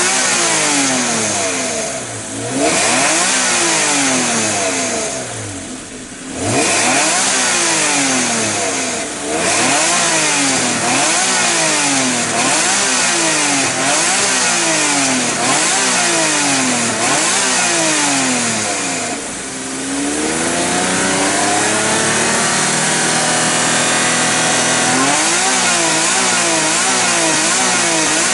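Honda NSX NA1's V6, through a Mugen exhaust, free-revving while the car stands still: quick throttle blips rising and falling about every second and a half. Near the middle the engine drops back briefly, then climbs in one longer, smoother rev before the quick blips resume near the end.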